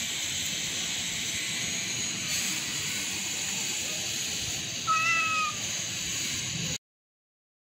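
A cat gives one short, slightly falling meow about five seconds in, over a steady background hiss.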